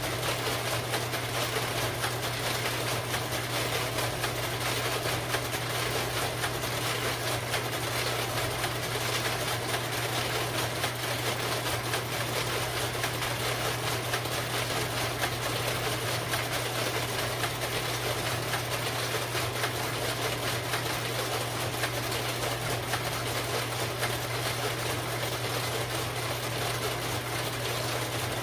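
A bank of carousel slide projectors with their cooling fans running, a steady hum with an even whirring hiss and no slide-change clicks.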